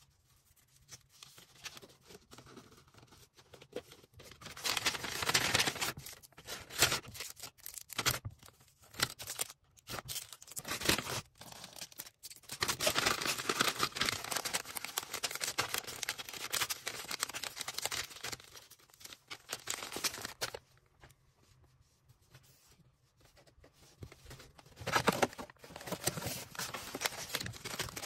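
Plastic packaging being handled, crinkled and torn while an order is packed, in several bursts with quiet pauses between; the longest burst runs for several seconds in the middle.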